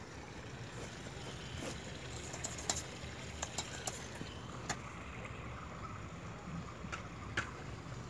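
Steady low background rumble with a scattering of sharp clicks, several in the middle and two near the end.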